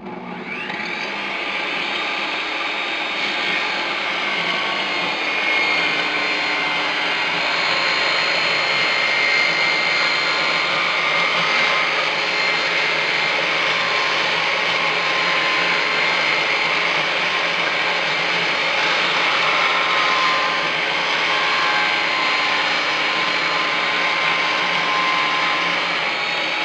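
Bosch portable table saw switched on, coming up to speed within about a second, then running steadily while its blade rips a wooden trim board fed through freehand. Loud, with slight wavers in the whine as the wood is fed.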